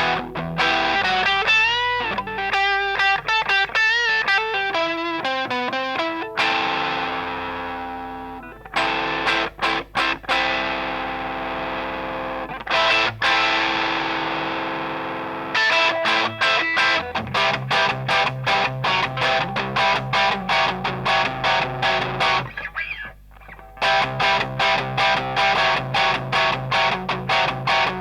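Electric guitar played through a Grindcustoms Feng Drive overdrive pedal, distorted. It opens with quick single-note runs, moves to ringing chords left to sustain and fade, then goes to a fast, evenly repeated rhythm with a brief break near the end.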